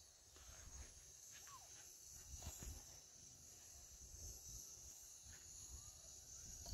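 Near silence: faint outdoor ambience with a steady high hiss and a few soft knocks.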